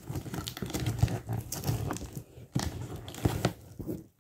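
Cardboard box being opened by hand: packing tape tearing and cardboard rustling and scraping, with two sharper rips about two and a half and three and a half seconds in. The sound cuts off suddenly near the end.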